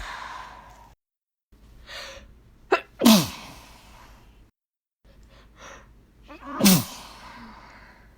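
Two unstifled sneezes by a woman in the "hh'MMFPSHhh!" style, each opening with a quick breath in and a short catch, then a loud hissing burst whose voice drops in pitch. The first comes about three seconds in, the second near the end.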